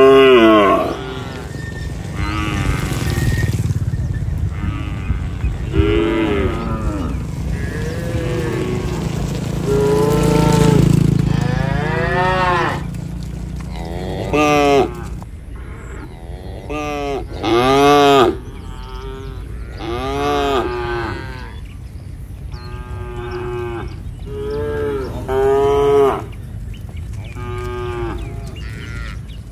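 A herd of cattle mooing again and again, many separate calls, some overlapping, many of them rising and then falling in pitch. A low rumble runs underneath through roughly the first half.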